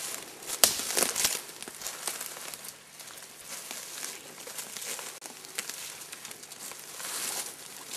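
Footsteps crunching through dry leaf litter while twigs and brush rustle and scrape against clothing and gear. The crackling comes in an uneven run, with its sharpest, loudest snaps about a second in.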